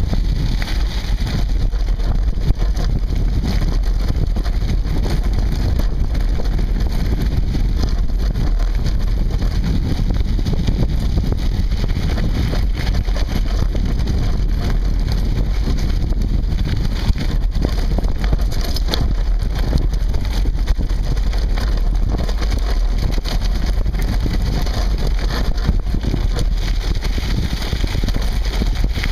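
Off-road handbike's tyres rolling and crunching over a gravel track, mixed with heavy wind rumble on the handlebar-mounted camera's microphone and constant small rattles and knocks.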